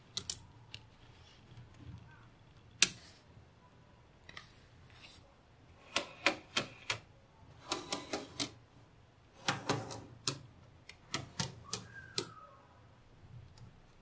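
Small magnetic balls snapping together with sharp clicks, irregularly spaced. Some clicks come singly and some in quick runs of several, the sharpest about three seconds in.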